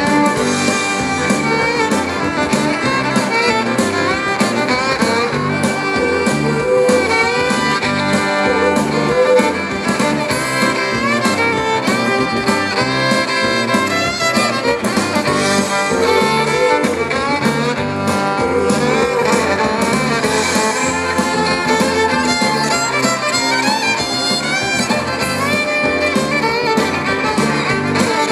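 Live band playing an instrumental passage with no singing, a fiddle carrying a gliding lead melody over acoustic and electric guitars, drums and keyboard.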